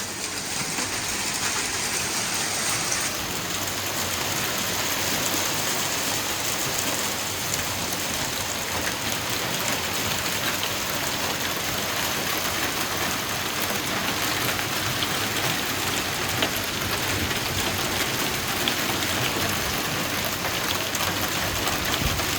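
Heavy hail mixed with rain, a dense, steady clatter of ice pieces striking hard surfaces.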